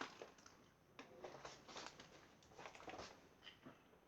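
Near silence: room tone with a few faint, soft clicks and rustles.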